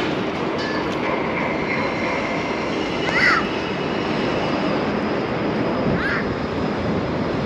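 Steady wind rushing over the microphone with outdoor city background hum, broken by two short chirps about three and six seconds in.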